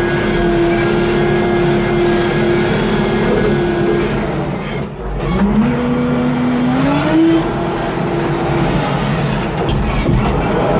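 W20E wheel loader's diesel engine running under load as the bucket pushes soil. About halfway through the revs drop sharply, then climb back up in steps over a couple of seconds.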